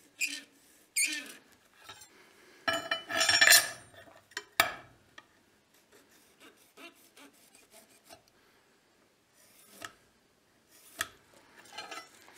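Metal scribe scratching layout lines into a brass bar in a few short strokes, the longest about three seconds in, with light clicks between strokes.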